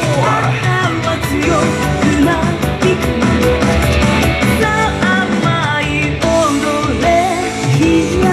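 YOSAKOI dance music played over loudspeakers: a recorded song with a sung melody over a steady beat.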